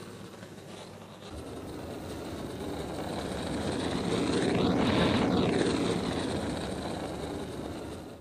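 An aircraft flying over: a steady rush that swells to its loudest about five seconds in and then fades, its tone sweeping as it passes.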